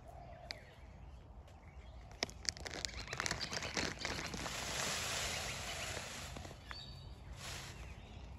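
A peacock shaking his fanned train in display, the feathers giving a rattle of quick clicks about two to four seconds in that runs into a steady rustling hiss.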